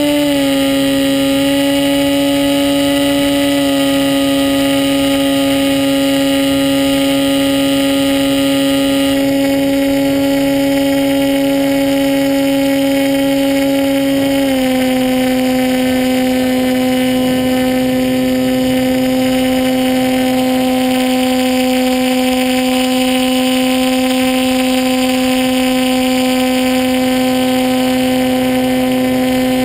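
Onboard sound of a radio-controlled model plane's motor and propeller: a loud, steady drone that drops slightly in pitch about half a second in and again about halfway through, as the motor slows a little.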